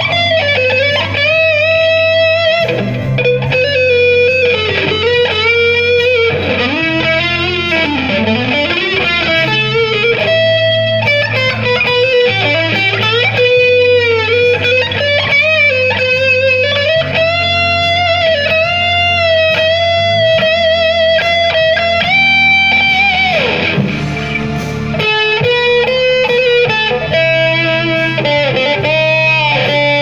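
An alder-body Strat-style electric guitar with an HHS pickup set plays a sustained lead melody through an amp, with string bends and vibrato. It plays over a rock backing track in A minor with steady bass notes. About three-quarters of the way through the guitar's pitch slides down in one long fall.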